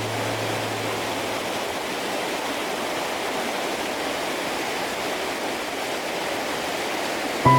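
Steady rushing of flowing water from a river or waterfall.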